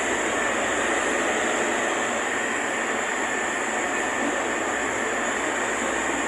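Interior of a Santiago Metro NS-74 rubber-tyred metro car in motion: a steady rolling noise with a faint, steady high tone running through it.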